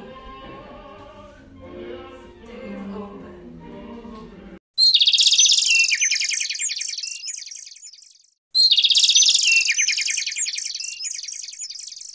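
Classical music with singing, cut off about four and a half seconds in, then a loud songbird song played twice, each time a bright burst of rapid trills that step down in pitch and fade over about three and a half seconds.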